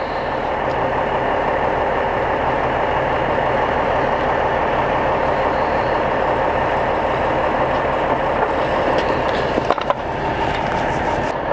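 Engine of a truck-mounted cement pump unit running steadily, with a couple of sharp knocks near the end.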